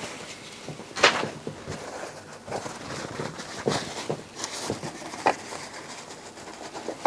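Paper towel rustling and rubbing on an aluminium heatsink as old thermal compound is wiped off it, with a few sharp clicks and knocks as the heatsink is handled, the loudest about a second in.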